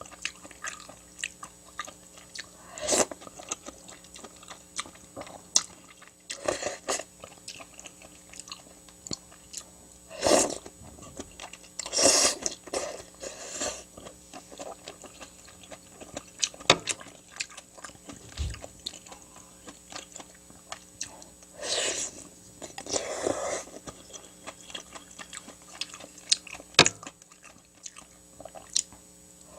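A person chewing and biting food, with many short mouth clicks and several louder, crunchier bites spread through.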